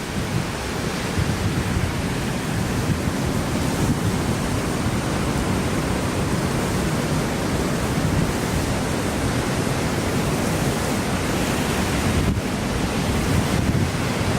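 Strong typhoon wind hitting the microphone over a steady rush of heavy surf.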